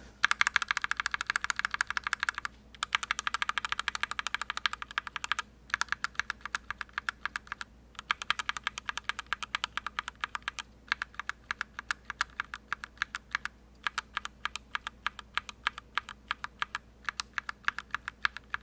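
Linear mechanical keyboard switches in a brass-plate KBD67mkii with GMK keycaps, single keys pressed rapidly and repeatedly in runs of two to three seconds with short pauses between, one switch after another. The runs compare how deep each switch sounds.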